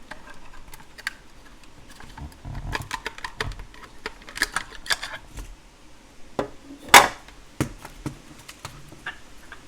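Handling noise from a plastic flip clock being taken apart: scattered clicks, taps and a few dull knocks as the case and parts are worked loose, with one sharp, loud click about seven seconds in.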